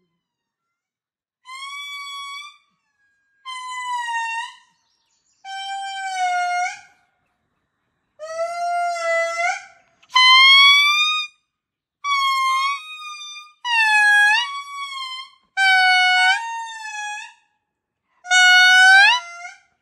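Indri lemur calling: a series of about nine long, pitched notes, each a second or so long with short pauses between, many dipping and then rising in pitch at the end. The calls get louder in the second half.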